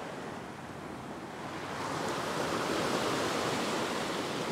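Ocean waves washing in over a flat rock ledge, a steady rush of surf that swells about two seconds in.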